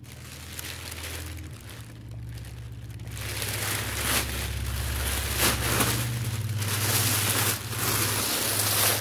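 Tissue paper rustling and crinkling as it is pulled and crumpled by hand, louder and busier from about three seconds in.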